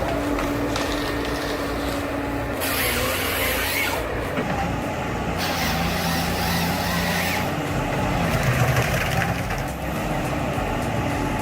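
Eight-wheeled forest harvester running steadily with engine and hydraulic noise. Two spells of loud hissing come, one about two and a half seconds in and a longer one about five seconds in.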